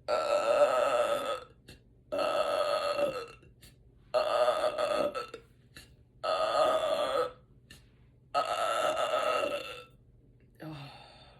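A woman belching five times in a row, each burp long (over a second) and loud, about two seconds apart. The gas comes from a bottle of sparkling water she has just drunk with her meal.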